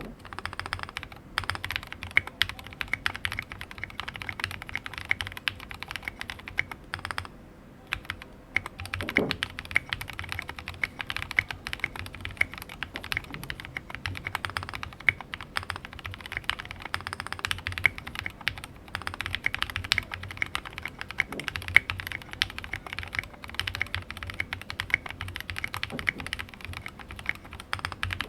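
Continuous fast typing on a mechanical keyboard with lubed Gateron Merlot linear switches and SA-profile ABS keycaps in a plateless build with a resin case, a rapid stream of key clacks with a short pause about eight seconds in.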